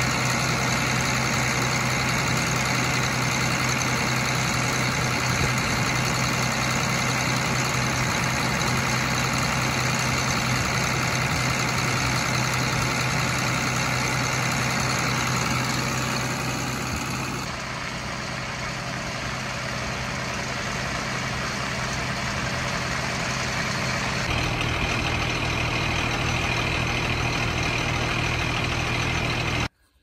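Allis-Chalmers 8070 tractor's six-cylinder diesel engine running loud and steady at a constant speed. It grows slightly quieter for several seconds past the middle, then comes back up.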